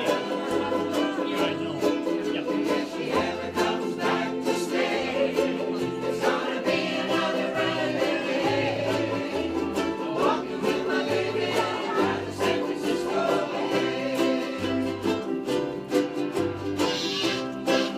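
Ukulele band strumming chords over a bass line that steps between low notes roughly every half second to second.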